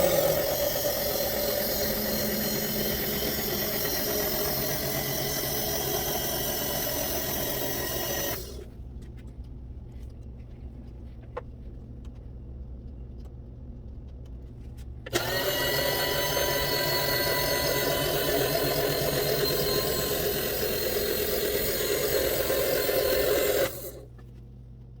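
An electric power tool runs twice for about eight seconds each time, starting and stopping abruptly, with a quiet pause between the runs.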